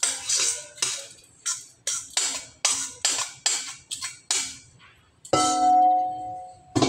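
Metal utensil tapping and scraping against a stainless steel mixing bowl about twice a second, knocking the last of the marinade into the baking pan. Near the end the bowl gives one clear, bell-like ring that fades over about a second and a half.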